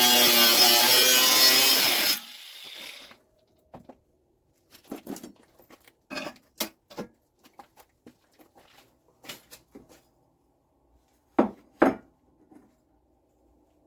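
Music that cuts off about two seconds in, followed by scattered light taps, scrapes and rubbing from tools and metal being handled in a workshop, with two sharper clicks close together near the end.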